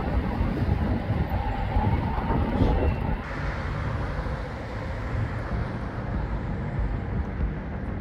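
Outdoor city ambience: a steady low rumble of traffic. A steady hum runs through the first three seconds and stops about three seconds in, where the background changes.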